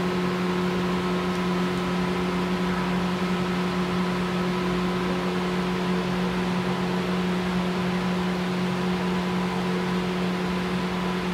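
Steady machine hum: a constant low drone with a few fainter higher tones over an even hiss, unchanging throughout.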